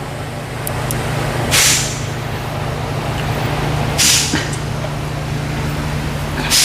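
Three short bursts of hissing air, about two and a half seconds apart, over a steady low machine hum.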